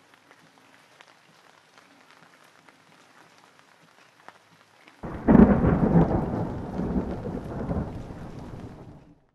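Light rain falling, with scattered drips, then about five seconds in a sudden loud thunderclap that rumbles on and fades away over about four seconds.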